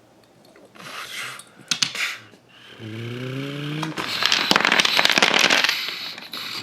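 Toy building blocks being pushed and scraped, then falling in a loud clatter of many small knocks about four seconds in. A short rising hum comes just before the collapse.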